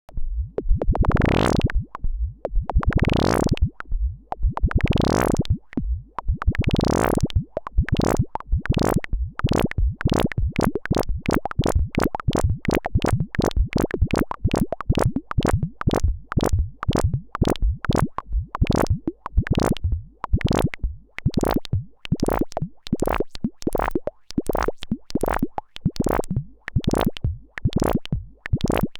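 Bastl Instruments SoftPop analog synthesizer playing a pattern of short, sharp plucked notes, each starting bright and quickly fading. The notes come about one every two seconds at first, then speed up to several a second after about eight seconds.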